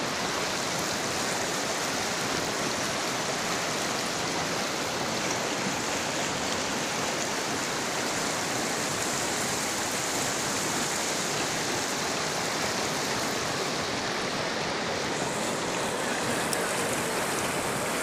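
Fast-flowing mountain river rushing over choppy rapids, heard close to the water surface: a steady, even rush of water.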